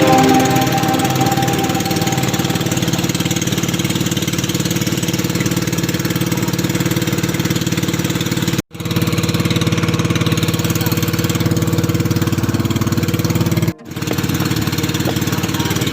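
A small engine running steadily at an even speed, cut off twice for an instant, about nine and fourteen seconds in.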